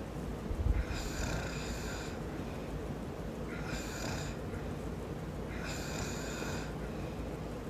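A man snoring in his sleep: three snores about two seconds apart, with a brief low thump about a second in.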